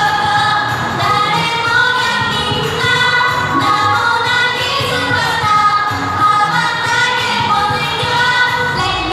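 Pop song with female vocals and a steady beat, played back as the backing track for a dance routine.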